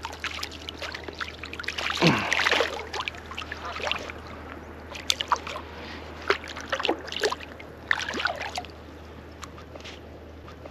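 Small white perch splashing at the water's surface on the line, then water dripping and sloshing as it is grabbed by hand. There is a loud splash about two seconds in, then many short sharp splashes and drips that die away near the end.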